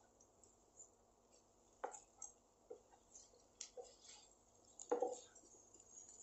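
Wooden spatula stirring a thick masala fry in a nonstick kadai, with a few soft scrapes and knocks against the pan, the loudest about five seconds in.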